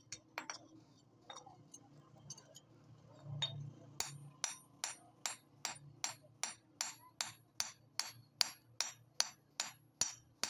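Hand hammer striking the red-hot bit of a hatchet head on a steel anvil. A few light taps, a pause of about two seconds, then sharp, ringing blows at an even pace of about two and a half a second.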